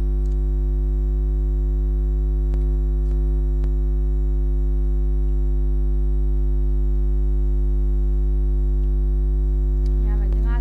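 Loud, steady electrical hum made of a stack of unchanging tones, strongest at the lowest pitch: a recording fault that buries the sound. A few faint clicks come through about a third of the way in, and a voice starts near the end.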